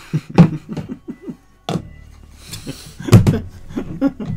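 A plastic cup and a lidded plastic jar handled on a tabletop: a run of sharp clicks and knocks, the loudest about three seconds in. A few short wordless vocal noises come about a second in.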